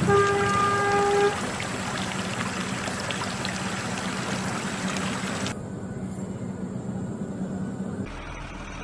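Muddy water splashing and sloshing as a plastic toy dump truck is pushed through a shallow channel, over a steady low hum. A brief steady tone sounds at the very start, and the splashing dies down a little after five seconds.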